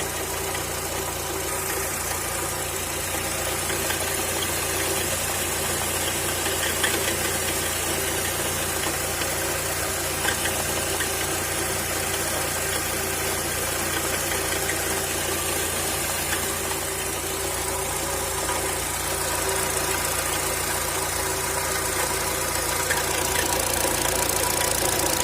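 Car engine idling with a timing-chain rattle. The uploader traced the noise to a hydraulic chain tensioner that stopped working because the engine oil had degraded and thinned.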